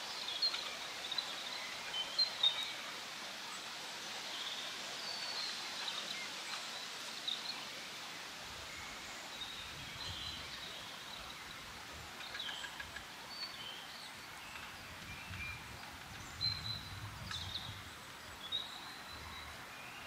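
Several songbirds singing and calling, short chirps and phrases scattered throughout, over a steady hiss of wind in the leaves. A faint low rumble comes and goes in the second half.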